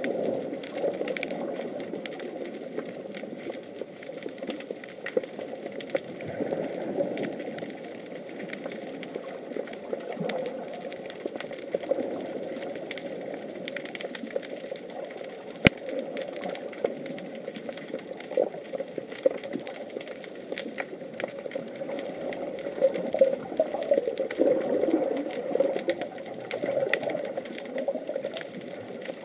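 Underwater ambience picked up by an action camera in its waterproof case: a steady, mostly low water noise with many small crackling clicks, and one sharp click about halfway through.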